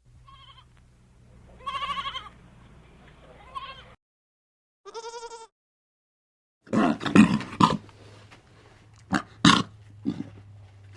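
Animal calls from a string of short clips: three brief, wavering, bleat-like calls in the first half, then after a cut a run of loud, harsh, noisy calls over a low steady hum.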